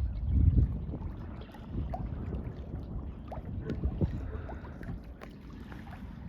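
Uneven low rumble of wind buffeting the microphone beside the river as the freighter Burns Harbor passes, loudest about half a second in, with a few faint short chirps.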